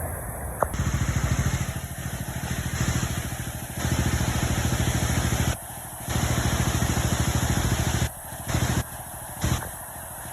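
An engine running, its rapid pulsing loud in several spells that break off suddenly, with two short bursts near the end.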